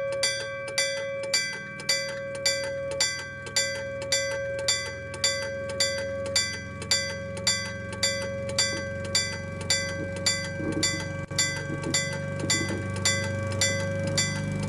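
Meitetsu electric-bell level-crossing signal (denshō-shiki), its iron bell struck by an electric striker, clanging evenly about twice a second with a ringing tone between strikes. A low rumble builds underneath in the last few seconds.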